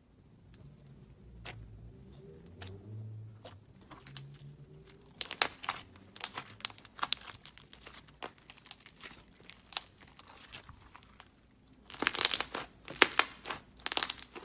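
Thick clay slime being stretched, pressed and squished by hand, giving sharp crackling clicks and pops. The clicks come in dense clusters about five seconds in and again near the end, with quieter handling between.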